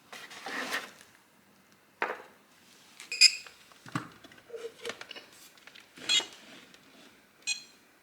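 Hard plastic clicks and knocks from handling a robot vacuum and its charging dock while setting it up to power on. The knocks come one at a time, about six of them, with a short rustle near the start.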